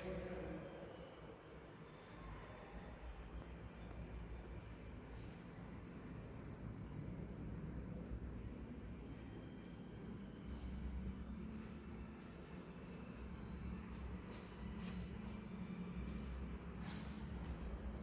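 Crickets trilling: one steady, high, unbroken trill with a low rumble underneath.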